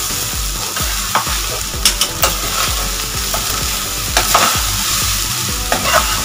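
Veg fried rice sizzling in a hot aluminium kadhai on a high gas flame while a metal spoon stirs it and lifts it from the bottom. Over the steady hiss come short scrapes and clinks of the spoon against the pan every second or so.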